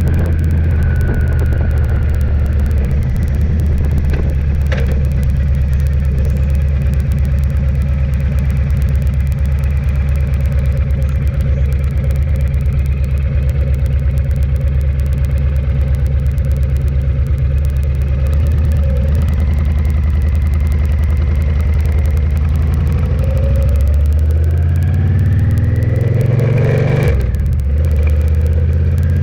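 Vehicle engine running steadily while driving, with a single knock about five seconds in. Near the end the engine note rises, breaks off briefly as it shifts gear, then rises again.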